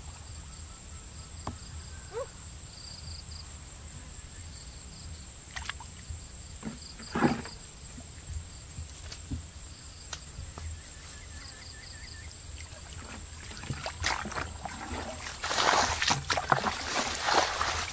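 Splashing and sloshing in shallow muddy water near the end. Underneath, a steady high insect whine with faint, repeated chirping.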